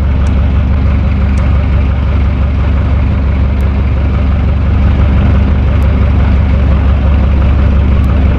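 Electric fan running at a steady speed: a loud, even motor hum under a constant rush of moving air.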